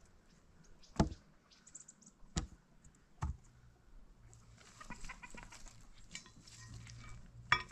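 Dry wood branches being broken up by hand, giving four sharp cracks spread across the few seconds. In the latter half there is a run of short clucking calls, like a hen.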